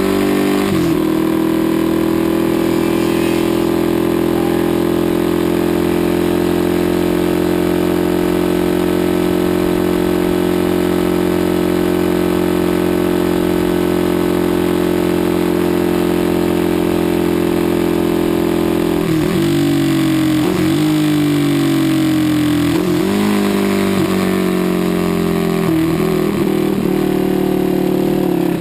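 Aermacchi Ala d'Oro 350's single-cylinder four-stroke racing engine heard onboard at full throttle, its pitch held high and nearly steady after one quick gear change just under a second in. About two-thirds through, the revs dip and climb back several times in quick succession as the rider shifts gears for the corners.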